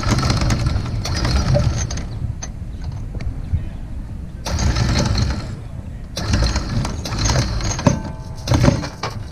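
Lewmar electric anchor windlass running in several short bursts, each a second or two long, hauling galvanized chain over the gypsy with a metallic rattle as the chain drops into the anchor locker.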